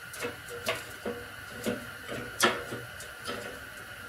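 Light knocks and clinks of steel mounting parts being handled and fitted together, about six separate taps, the loudest about two and a half seconds in.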